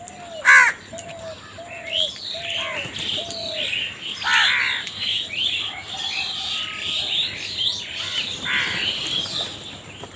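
Crows calling, with a loud caw about half a second in and another around four seconds in, over a busy chatter of small birds chirping.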